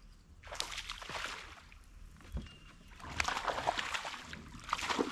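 A hooked bass thrashing and splashing at the water's surface in two bursts, the first about half a second in and a longer, louder one from about three seconds in.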